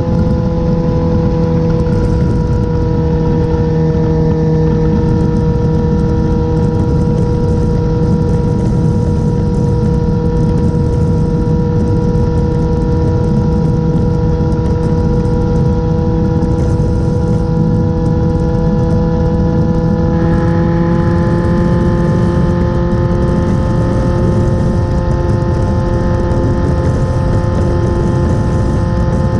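Motorcycle engine running steadily at highway cruising speed, over wind and road noise. About twenty seconds in, the engine note rises slightly as it picks up a little speed.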